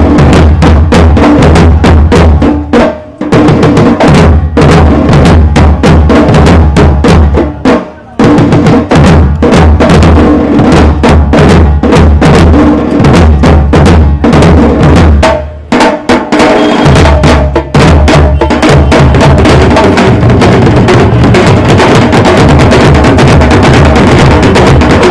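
A group of barrel drums playing loudly for a Chhau martial dance: one drum is struck with a long curved stick and others are played by hand, in a fast, dense rhythm with a deep boom. The playing breaks off briefly about three, eight and sixteen seconds in.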